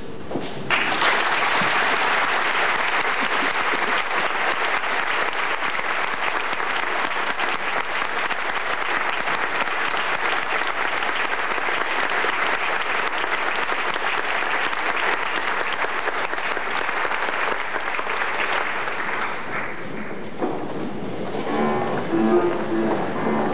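An audience applauds, starting about a second in and fading out after about twenty seconds. Instrumental music begins near the end.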